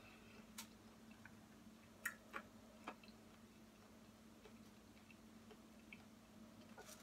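Near silence over a steady low hum, with a few faint sharp clicks, mostly in the first three seconds, as fried chicken is picked apart by hand.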